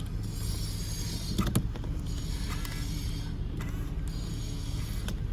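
Holden VY Commodore idling with a steady low hum, as the electric side-mirror switch is worked: a sharp click about a second and a half in and a faint whir of the mirror motor. The mirror is being tested after its sticking switch was cleaned, still not moving down.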